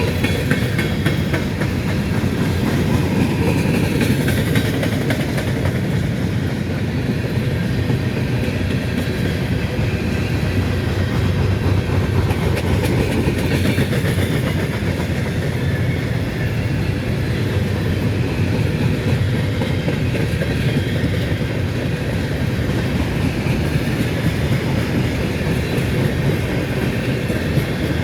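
Freight train of empty covered grain hopper cars rolling past steadily, a continuous rumble of steel wheels on the rails.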